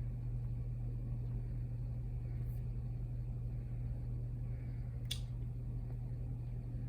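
Steady low electrical hum of room tone. One sharp click comes about five seconds in, and a fainter one about halfway.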